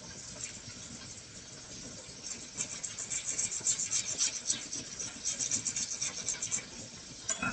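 Whole nutmeg scraped on a small hand grater: a run of quick scratchy grating strokes starting about two seconds in and stopping just before the end, over a faint steady hiss.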